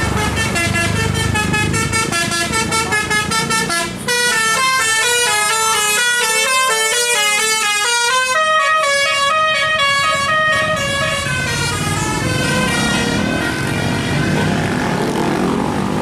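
Bus telolet "basuri" multi-tone horn playing tunes of stepped notes: a fast pulsing run first, then about four seconds in a longer melody that ends about twelve seconds in. After that, traffic from passing vehicles.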